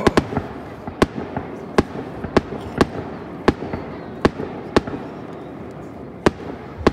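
Aerial fireworks shells bursting: about a dozen sharp bangs at uneven intervals, one to two a second.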